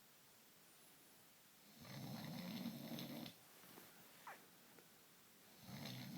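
A sleeping man snoring, slow and regular: one long, low snore about two seconds in, and the next beginning near the end.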